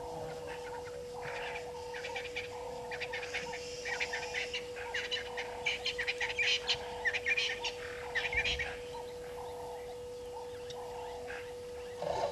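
Wild birds chirping and calling, with a busy stretch of rapid chirps in the middle, over a lower call repeated about once a second and a steady tone throughout.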